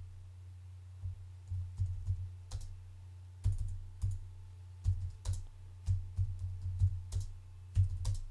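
Computer keyboard being typed on: irregular runs of keystroke clicks starting about a second in, over a steady low hum.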